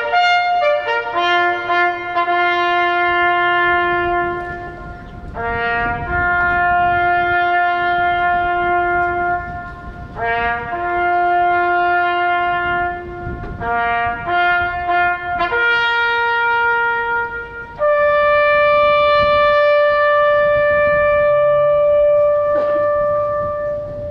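Solo trumpet playing a slow call of long held notes in several phrases, the last note held for about five seconds before it fades near the end.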